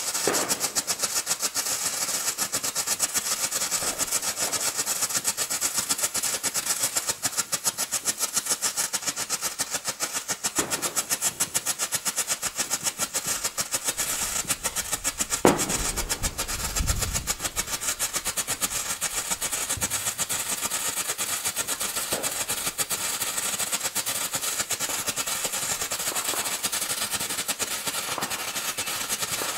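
Zena Disco Flash White strobe firework (30-gram flash pot) burning: a fast, steady run of sharp flash pops over a hiss, with one louder crack about halfway through.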